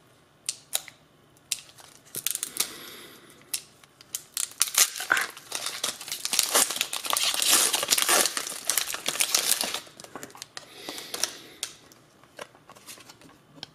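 Foil wrapper of a Pokémon trading-card booster pack being torn open and crinkled by hand. Short scattered crackles at first, then dense crinkling and tearing through the middle, easing off toward the end.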